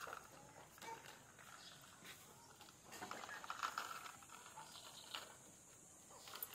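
Faint rustling and a few scattered clicks from goats shifting about in their pen, with a longer stretch of rustling about three seconds in.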